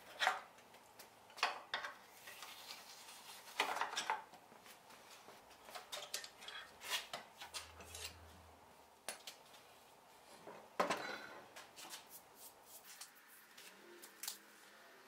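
Scattered metal clinks, knocks and short scrapes as iron axle fittings and tools are handled on a wooden wagon axle bed, the loudest about half a second, four and eleven seconds in.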